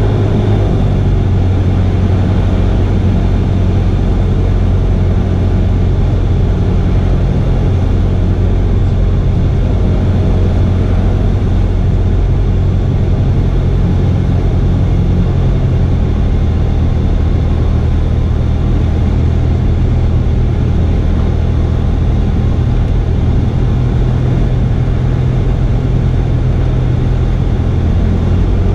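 Cessna 172R's four-cylinder Lycoming engine and propeller droning steadily in cruise-to-approach flight, heard from inside the cabin. The engine note changes slightly about halfway through.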